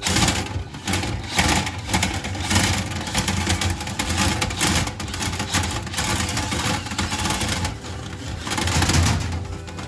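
Power drill spinning a Lint Eater rotary brush through a dryer vent duct, the motor running steadily while the brush scrubs the duct walls, its noise rising and falling as it works.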